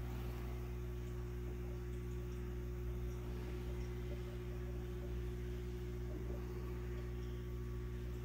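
Steady low hum of an aquarium pump.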